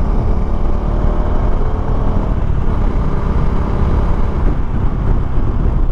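Wind buffeting the microphone while a Bajaj Dominar 250 motorcycle is ridden, its single-cylinder engine running steadily underneath the rumble.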